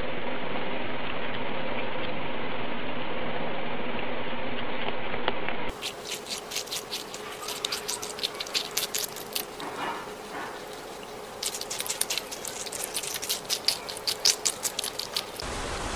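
Guinea pigs munching a watermelon slice: rapid, crisp, irregular chewing clicks, starting about six seconds in and stopping briefly near the middle. Before that there is only a steady hiss with a faint low hum.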